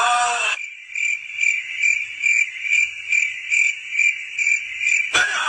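A high chirping call, evenly repeated about three times a second, laid in as a sound effect; it cuts in about half a second in after a voice and stops with a short click about five seconds in.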